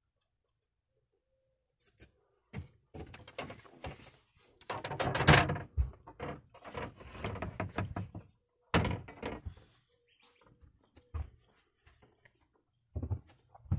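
Cabinet doors and fittings being handled inside a small camper van: scattered knocks and thunks after a quiet start, with louder clatters about five seconds in and again near nine seconds.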